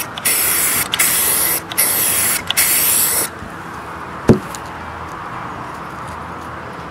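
Aerosol spray-paint can sprayed in four short hissing bursts, stopping a little over three seconds in. About a second later comes a single sharp knock.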